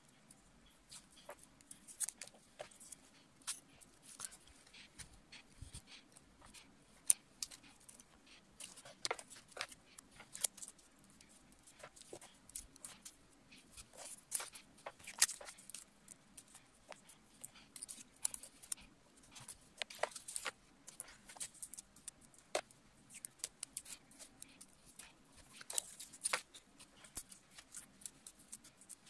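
Paper strips and sticky tape being handled, snipped with scissors and pressed onto a card: irregular small clicks and crackles throughout, with a few sharper snaps.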